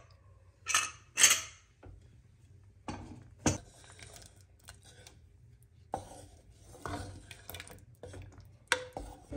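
Two metal clatters about a second in, then a wooden spoon stirring a thick curry in an aluminium pressure cooker pot, with scattered scrapes and knocks against the metal.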